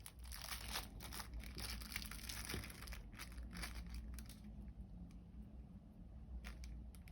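Faint crinkling and small scattered clicks from hands working with slime and sprinkles, busier in the first half and thinning out later.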